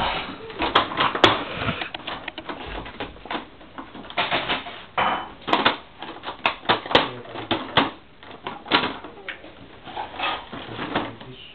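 A cat pawing and scratching at a cardboard advent calendar box, tearing into its paper-covered compartments for the treats hidden inside: irregular crackling, tapping and rustling of cardboard and paper.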